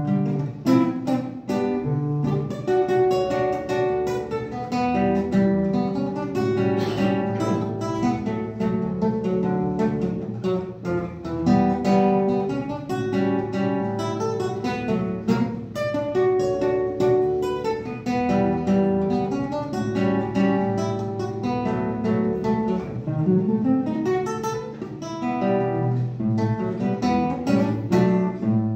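Solo nylon-string classical guitar played with the fingers: a continuous flow of plucked notes and chords, with a quick rising run in the bass about 23 seconds in.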